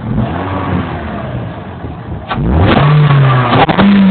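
Scion xD's 1.8-litre four-cylinder engine breathing through a new aftermarket intake, given a short blip and then revved hard a little over two seconds in, holding high and loud.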